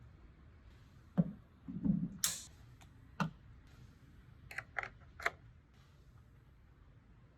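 Handling noise: a few dull knocks, a short rustle and several sharp clicks, scattered and irregular.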